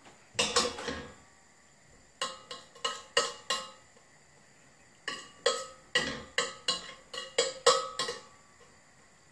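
Metal spoon knocking against a stainless steel cooking pot as coconut oil is tapped off it into the pot: a few clinks about half a second in, five taps about two seconds in, then a run of about eight taps from about five seconds in.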